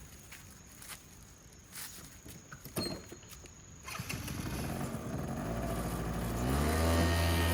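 Moped engine starting. After a few clicks and knocks, it catches about five seconds in, climbs briefly in pitch and settles into a steady idle.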